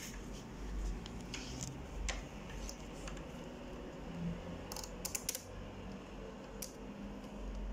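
Scattered small metallic clicks and taps of a screwdriver and parts on the metal side frame of an Epson LQ-310 dot-matrix printer, as its carriage rod is worked loose. A quick run of clicks comes about five seconds in.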